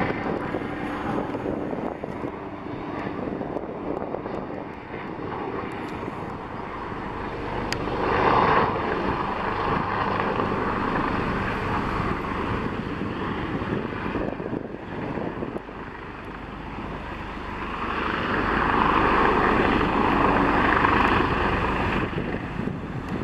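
Firefighting helicopter's rotors and turbine engines running as it flies low over the canyon on a water-drop run. The sound swells briefly about eight seconds in, then grows louder again for several seconds near the end.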